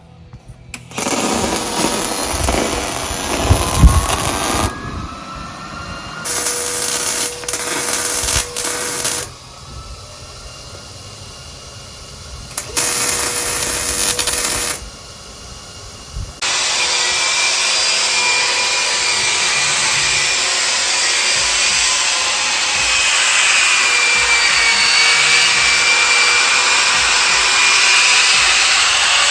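A handheld power tool running in several bursts of a few seconds each, its pitch rising as it spins up in the first, then running steadily for the last dozen or so seconds.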